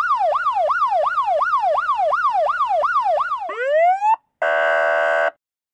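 Police siren in a fast yelp, sweeping up and down about three times a second, then one rising whoop. After a brief gap comes a short steady honk of about a second, which cuts off.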